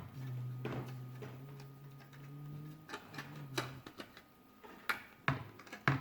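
Scattered light clicks and taps of tools and hands working on the plastic Teddy Ruxpin toy, over a low steady hum through the first half.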